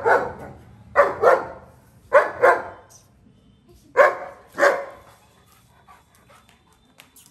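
Long-coated German Shepherd play-barking, short loud barks in quick pairs, about seven in all, stopping about five seconds in.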